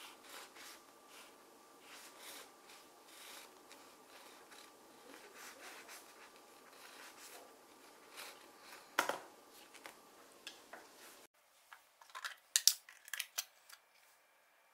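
A knife sawing through a toasted bagel on a wooden cutting board, in a run of short, repeated strokes, with a knock about nine seconds in. Near the end come a few sharp, loud clicks and knocks.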